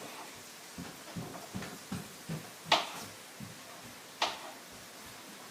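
Knife chopping vegetables on a cutting board. There is a quick run of soft taps, then two sharp knocks about a second and a half apart.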